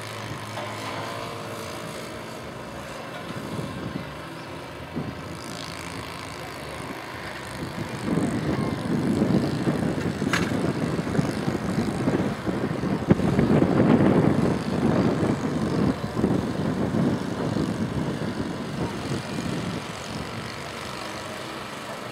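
Propeller plane's engine running as the high-wing plane flies overhead. It grows louder from about a third of the way in, is loudest just past the middle, then fades again.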